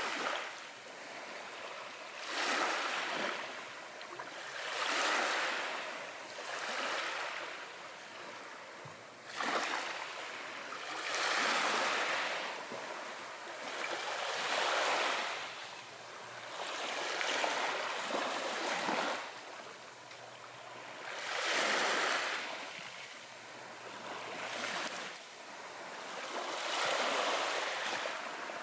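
Ocean waves washing in, the rush of water swelling and fading in surges every two to three seconds.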